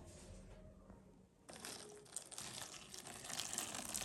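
Hot water being poured onto dried fish to soak it: a faint crackling hiss that starts about a second and a half in.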